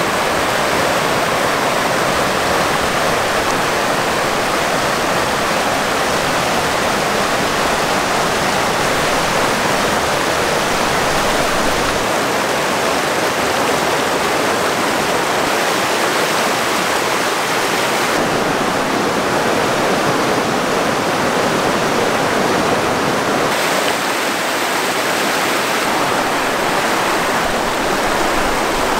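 Mountain river rushing over rocks: a loud, steady wash of running water with no breaks, its upper hiss dimming slightly about two-thirds of the way through.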